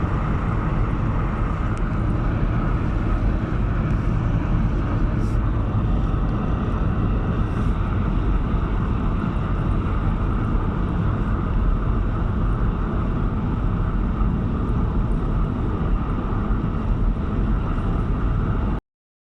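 Car driving on a motorway: a steady rumble of road, tyre and engine noise that cuts off suddenly near the end.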